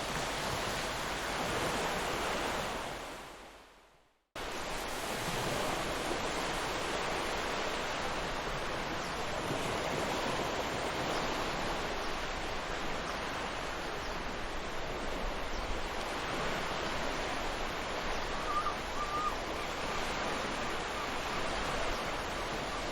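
Ocean surf washing on a beach as a steady rush of noise. It fades to silence about four seconds in and then cuts straight back in. A short faint high note sounds near the end.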